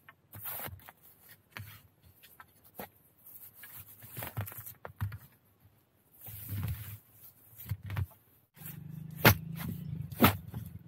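A machete working at the base of a bamboo shoot. Scattered rustling and scraping in the dry bamboo leaf litter comes first, then two sharp chops about a second apart near the end, the blade biting into the shoot to cut it free.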